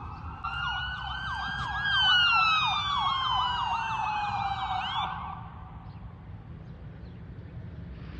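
Ambulance siren: a wailing tone that rises for about two seconds and then slides down, with a fast warble laid over it, loudest about two seconds in and cutting off suddenly about five seconds in. A low rumble of the vehicle and road runs underneath.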